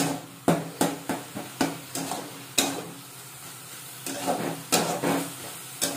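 A metal spatula scraping and knocking against a metal kadai as onion and ginger-garlic paste masala is stirred and fried, over a low sizzle. The strokes are irregular, with a short lull midway. The paste is being fried down until its water cooks off.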